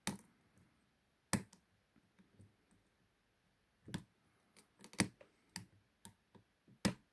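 Lock pick and tension wrench working the pin stack of a 50 mm Ruma padlock: a string of sharp, irregular clicks, about seven clear ones with fainter ticks between, the clicks of pins being lifted and set.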